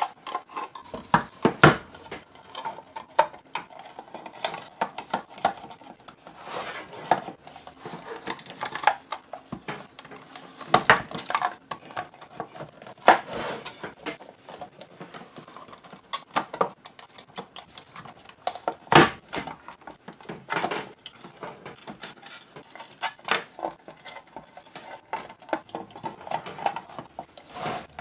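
Plastic case of a Commodore 128 power supply being handled and fitted back together: irregular clicks, knocks and light rattles of plastic, some sharper than others, with cables shifting.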